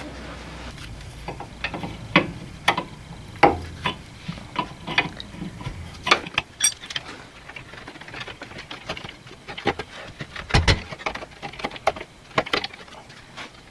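Spanner working the lower nut of a classic Mini's rear shock absorber loose: irregular metallic clicks and taps, with a dull knock about three-quarters of the way through.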